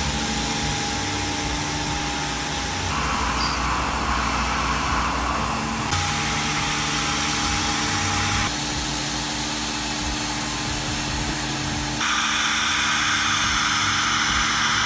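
Tormach PCNC 1100 CNC mill machining an aluminium plate: the spindle runs steadily while an end mill cuts the part outline, with a continuous hiss and a steady hum. The sound changes abruptly a few times as the machining shots switch.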